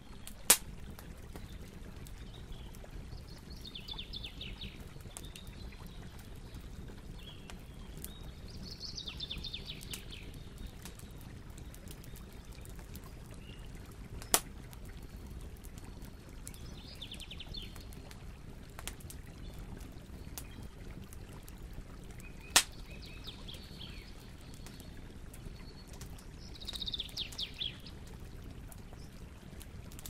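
Large wood bonfire burning with a steady low rumble, broken by three sharp pops of the burning logs. A bird's short trilling song, high-pitched, repeats four times.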